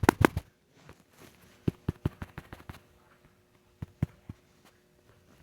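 Clicking: a fast, even run of sharp clicks stops about half a second in, then a handful of scattered single clicks follow, over a faint steady hum.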